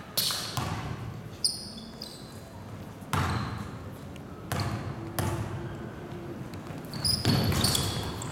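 Basketball game play in a gym: a basketball bouncing on the court floor in irregular thuds that echo around the hall, with a few short high squeaks.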